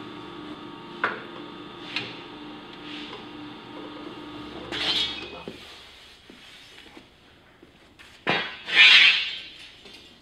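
Metal parts clinking and clattering in a metalworking shop over the steady hum of a machine, which stops about halfway through. Near the end comes a sharp metallic knock followed by a loud clatter.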